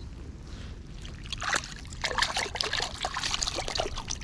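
Small largemouth bass released at the edge of the water: a run of splashes and dripping water that starts a little over a second in and is loudest around the middle.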